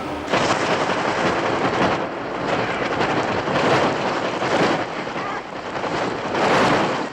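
Rushing storm noise of rain and wind that swells and ebbs several times, loudest near the end.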